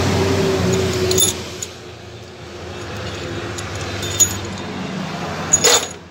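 Loose metal parts clinking with a few sharp, ringing clinks, the loudest cluster near the end. A steady hum drops away after about a second.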